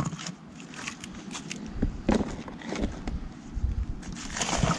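Newly lit campfire crackling, with irregular sharp pops. There are heavier low rumbles and bumps about two seconds in and again near the end.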